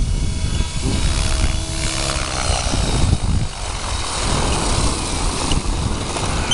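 Electric Gaui X7 RC helicopter's rotor and motor running as it comes down to land, under heavy wind buffeting on the microphone. A faint pitched motor whine is heard about a second in.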